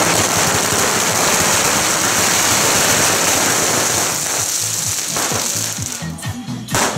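A string of firecrackers crackling in a dense, rapid stream, thinning out and dying away around six seconds in as drumming comes back.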